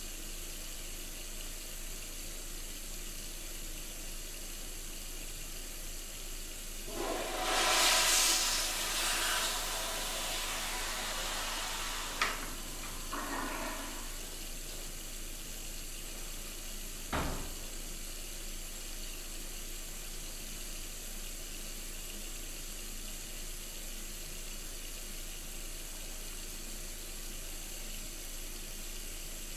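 Toilet flushing about seven seconds in, a rush of water that fades away over several seconds, over a steady hiss. A sharp click comes near the end of the flush, and a single thump a few seconds later.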